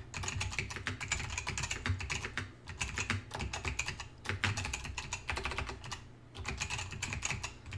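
Typing on a computer keyboard: a quick run of keystroke clicks as a sentence is typed, with a brief pause a little before the end.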